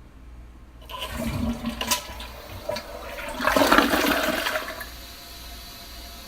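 A toilet flushing. The water surges in about a second in and rushes loudest near the middle, then dies down to a low steady hiss.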